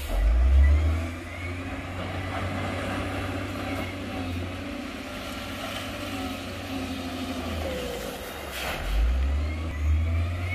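Heavy diesel engine of an earthmoving machine running under load, a deep rumble that swells louder about a second in and again near the end.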